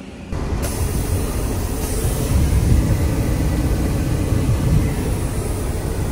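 Steady low rumble and road noise of a heavy semi truck under way, cutting in abruptly about a third of a second in.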